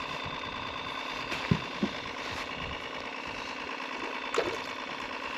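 Boat motor running steadily at low speed, with a few short blips over it, the loudest about one and a half seconds in.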